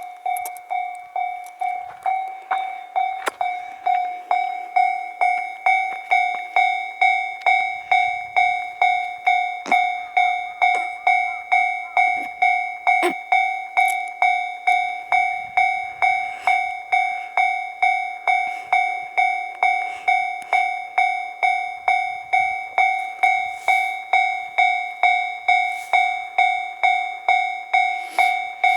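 Railway level-crossing warning bell ringing at an even pace, about two strokes a second, stepping up in loudness about four seconds in.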